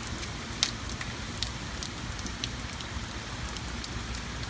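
Steady rain falling, with scattered sharp ticks of drops striking, one louder about two-thirds of a second in.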